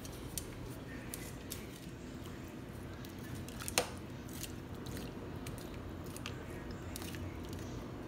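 Metal tongs quietly working vegetables into a stainless steel pot of pot roast: faint soft handling with a few light clicks and one sharper clink a little under four seconds in.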